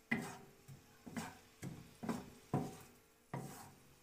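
Wooden spatula scraping and stirring chopped onion around a nonstick wok, about seven strokes roughly every half second.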